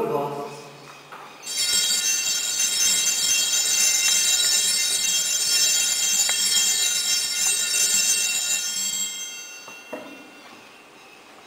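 Altar bells ringing steadily for about seven seconds at the elevation of the host during the consecration, many high ringing tones at once. They start about a second and a half in, stop about nine seconds in and die away.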